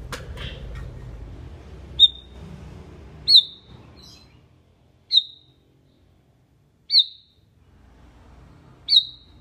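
Sooty-headed bulbul calling: five short, high chirps, each with a sharp start, spaced about every one and a half to two seconds.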